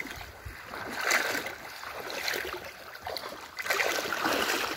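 Shallow muddy water sloshing and splashing around a person's legs as he wades, in irregular surges.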